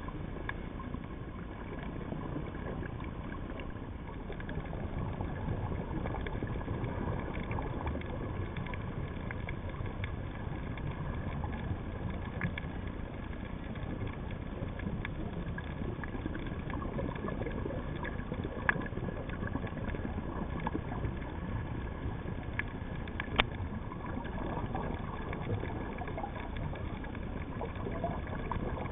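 Underwater ambience picked up by a camera in its housing on a night reef dive: a steady low rumble with faint steady whining tones, scattered crackling clicks, and a sharper click about 23 seconds in.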